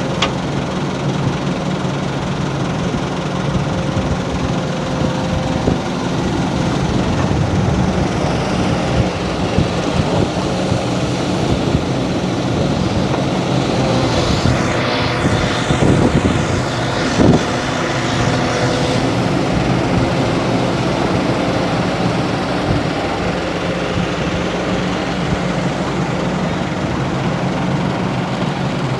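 Heavy diesel engine of construction machinery running steadily. About halfway through there is a few-second stretch of hiss and a couple of knocks.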